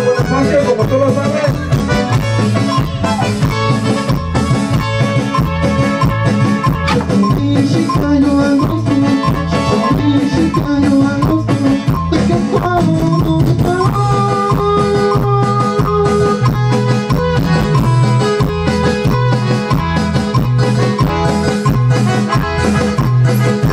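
Live band playing Latin dance music on electric keyboard, guitar and drums, with a steady, evenly repeating bass beat under held keyboard melody notes.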